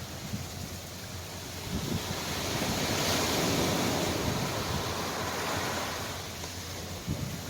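Ocean surf washing in, swelling to a peak about three seconds in and then easing off, with wind on the microphone.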